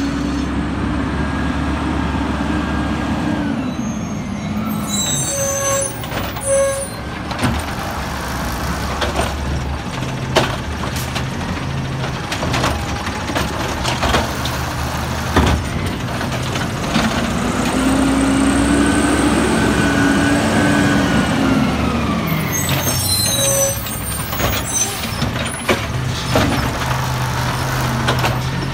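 Peterbilt 320 automated side-loader garbage truck pulling up and working the curb: the engine slows down, the air brakes hiss, and then the engine revs up and back down as the hydraulic arm grabs, lifts and dumps the carts, with sharp clanks of the bins.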